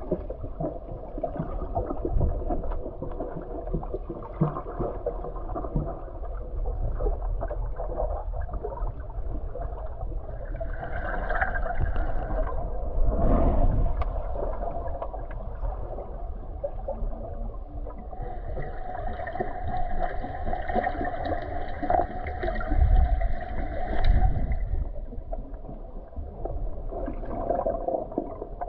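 Muffled underwater sound heard through a submerged camera: steady low rumbling and gurgling of water. Twice, for a few seconds near the middle and again later, a louder muffled hum with a higher edge comes through the water.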